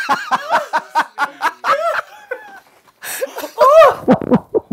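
Laughter, a quick run of short ha-ha bursts lasting about two seconds. After a short pause, a loud, high voiced squeal rises and falls near the end.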